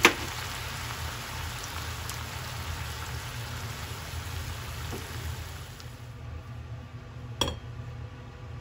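Pork and shiitake stir-fry sizzling in a frying pan, a steady rain-like hiss that thins out about six seconds in. A sharp click right at the start and a single knock about a second before the end.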